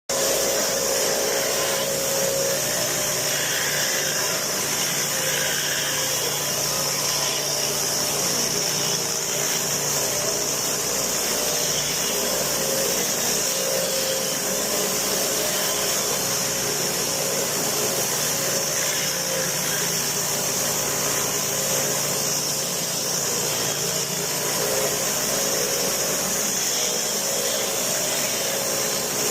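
Pressure washer running steadily while its water jet sprays concrete: a constant hiss of spray over the steady hum of the motor and pump.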